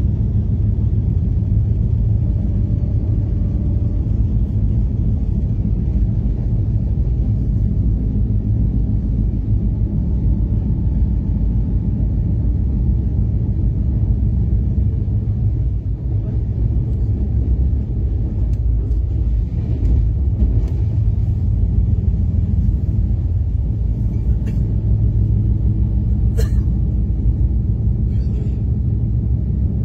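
Steady low rumble of a moving train heard from inside the carriage, its wheels running along the track, with a few sharp clicks near the end.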